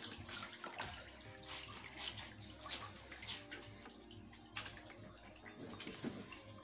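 Faint splashing and trickling of water in a baby's bath basin as a hand scoops water to wash a soapy baby.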